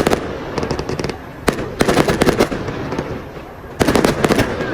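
Fireworks crackling in rapid clusters of sharp pops: one at the very start, a longer volley around two seconds in, and another near the end.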